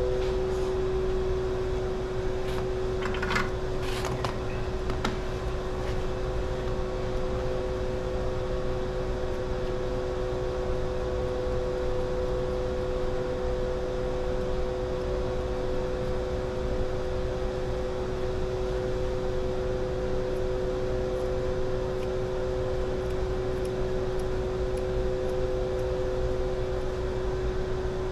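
A steady mechanical hum with two held tones over a low rumble, with a few faint clicks about three to four seconds in.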